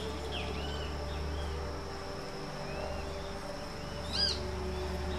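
Great kiskadee calls: a young bird begging for food. Several short, arched chirps come one after another, with a louder, sharper call about four seconds in, over a steady low hum.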